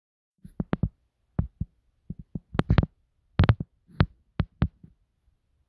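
A series of short, sharp clicks and taps, about fifteen in uneven clusters over four seconds, with silence between them.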